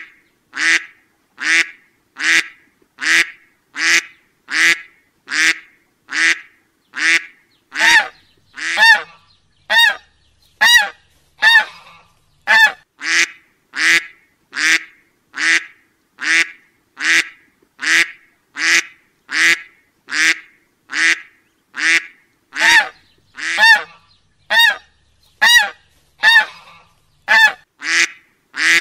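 A short duck-like honking call repeated at an even pace, a little more than once a second, like a looped sound effect. Some calls ring clearer and more pitched than others.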